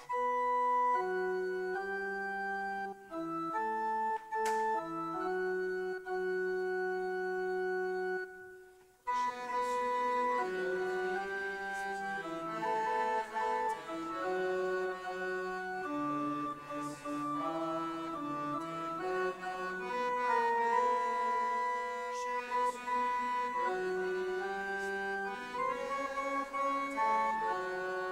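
Organ playing the accompaniment to a sung church response in slow, held chords. It plays a short introduction, breaks off briefly about eight seconds in, then carries on with fuller harmony.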